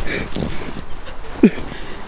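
Footsteps crunching through snow, with one short falling vocal cry about one and a half seconds in.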